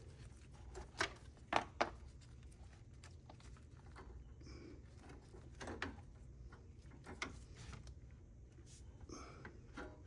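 Scattered short clicks and knocks of plastic wire connectors and tubing being handled on a refrigerator's water inlet valve, over a low steady hum.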